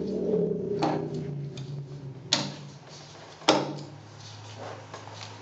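Amplified handling of paper sheets on a tabletop: light rustling broken by three sharp knocks, over a low steady hum from the amplification.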